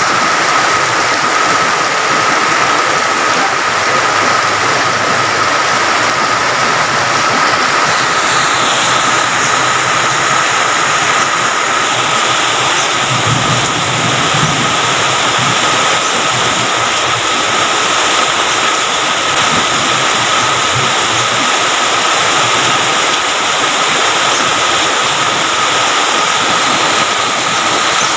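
Heavy rain pouring down in a loud, steady rush, with a thin steady tone running under it and a brief low rumble about halfway through.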